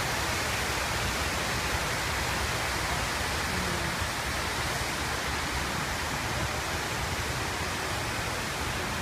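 Steady rush of water falling in sheets down the walls of a large sunken reflecting-pool waterfall and splashing into the basin below.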